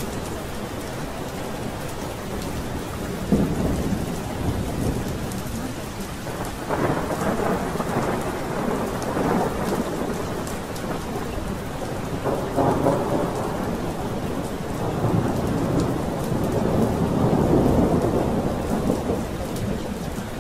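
Steady rain falling, with several slow rolls of thunder swelling and fading.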